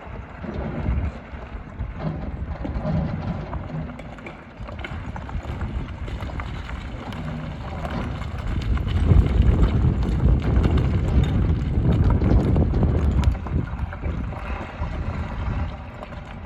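Hyundai HX300 excavator's diesel engine working under load, growing louder about eight seconds in, with stone and gravel knocking and scraping as the bucket gathers aggregate.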